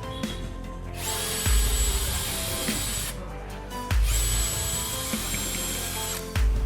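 A small power tool running, under background music with a deep bass hit about every two and a half seconds.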